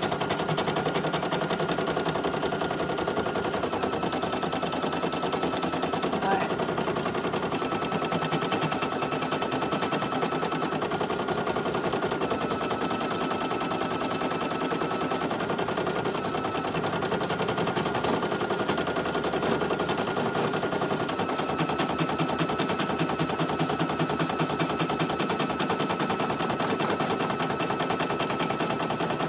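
Single-needle Brother PE800 embroidery machine stitching at speed: a rapid, even needle chatter, with a thin high whine that steps slightly up and down in pitch every few seconds.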